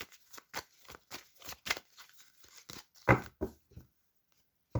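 A tarot deck being shuffled by hand: a quick, even run of card flicks, about four a second, ending with a few heavier taps of the cards about three seconds in.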